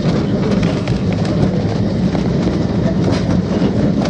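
Great Orme Tramway car running on its rails, a cable-hauled tram: a steady low rumble with scattered clicks from the wheels and running gear.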